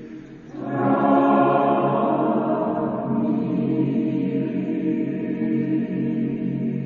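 Choir singing: after a short dip, a new full chord enters under a second in and is held long, slowly losing strength, as the closing chord of the song.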